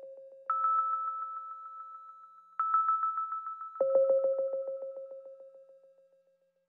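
Electronic tones from the SHR Tones plugin being triggered: a high pulsing tone fires twice, then a lower pulsing tone. Each pulses about nine times a second and dies away.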